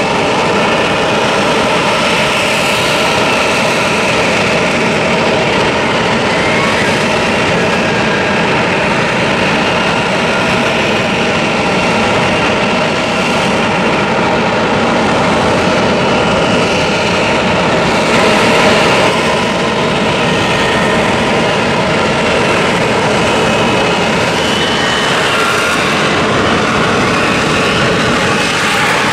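F-35B's Pratt & Whitney F135 jet engine and shaft-driven lift fan running at hover power in vertical-flight mode: a steady, loud jet roar with several high whining tones over it, swelling slightly about two-thirds of the way through.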